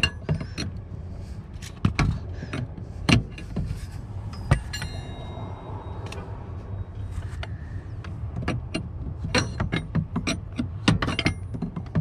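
Metal clicks and clinks of a wrench and socket ratchet tightening a truck's air-pressure brake light switch into its fitting, with one ringing clink near the middle and a quicker run of clicks in the last few seconds. A steady low hum lies underneath.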